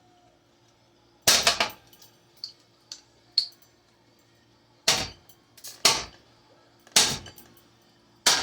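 Hard blows struck on a 2009 Hampton Bay Littleton ceiling fan as it is smashed: five heavy hits spaced about a second apart, the first a quick double, with a few small clinks between the first two.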